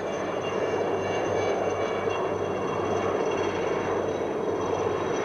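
Two helicopters flying past in formation, with a steady rotor and engine noise.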